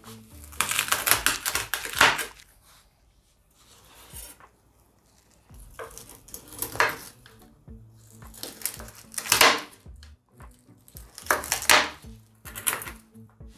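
A cleaver chopping through roast pork belly, crunching through the crisp crackling skin and striking the cutting board in about five separate cuts, the first one longer. Quiet background music runs underneath.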